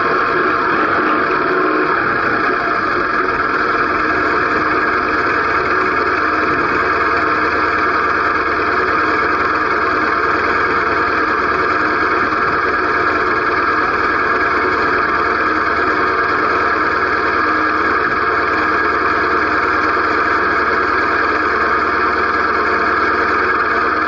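Motorcycle engine idling and ticking over at walking pace, a steady even hum with no changes in pitch.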